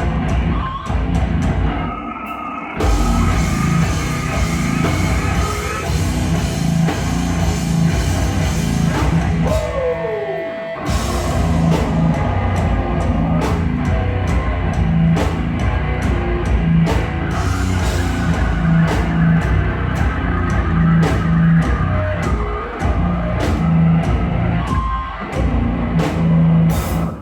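Live hardcore band playing heavy, distorted music on guitars, bass and drum kit, a heavy low riff pounding in rhythm. About ten seconds in there is a falling slide in pitch while the low end drops out briefly, and at the very end the song stops abruptly.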